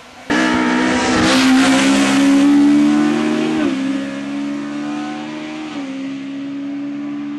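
Race car engine at full throttle on a hill climb. It comes in abruptly, its pitch climbs steadily, and it drops sharply at an upshift about halfway through and again at a second upshift about three quarters of the way in.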